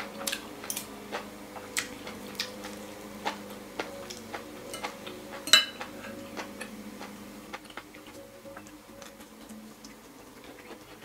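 Metal fork and spoon clicking and scraping against a ceramic plate while eating, with a louder ringing clink about five and a half seconds in.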